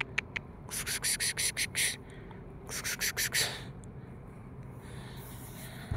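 Nutria (coypu) crunching food it has taken from the hand, in two short runs of quick crunches about a second and three seconds in.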